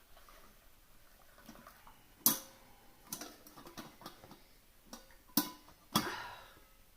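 A few sharp clicks and knocks, the loudest a little after two seconds in and two more near the end, the last trailing off in a brief rustling noise.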